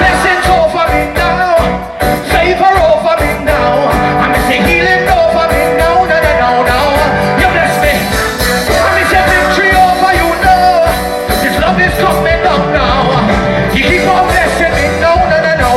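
Live band playing a gospel song with a steady beat, with singing over it.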